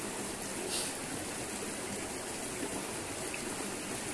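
River water running steadily over rocks, with a brief faint rustle about three-quarters of a second in.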